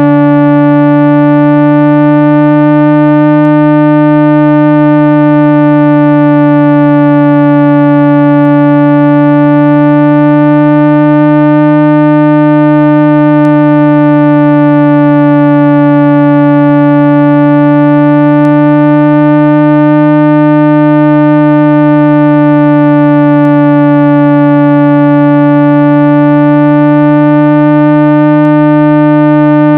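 Synthesized speaker-cleaning tone: a loud, steady low electronic tone with a stack of overtones that gently waver about every eight seconds, played to shake water and dust off a phone speaker's diaphragm.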